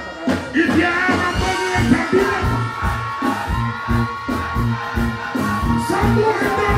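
Dancehall music played loud through a stage sound system, with a steady kick-drum beat under a held melody.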